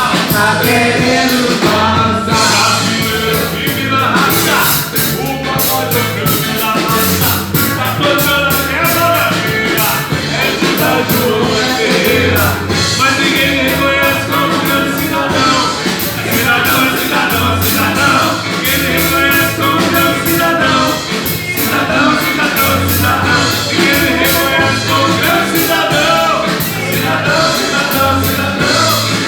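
Live band playing rock music, with a singer, drum kit with steady cymbals and bass guitar.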